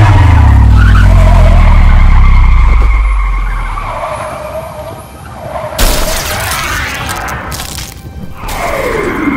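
Dubbed sound effects over background music. A loud low car-engine sound drops in pitch over the first few seconds. A sudden burst of skid-like noise comes about halfway through, and a tone slides steeply down near the end, leading into the toy cars' crash.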